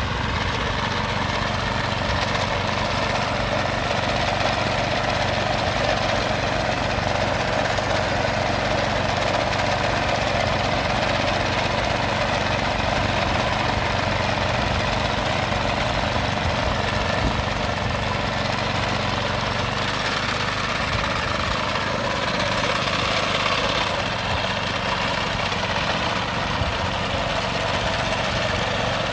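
Walk-behind sod cutter's small petrol engine running steadily as the machine cuts strips of turf.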